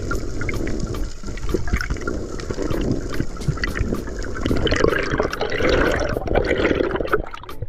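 Water sloshing and gurgling around a free-diving spearfisher, with a busier stretch about five seconds in.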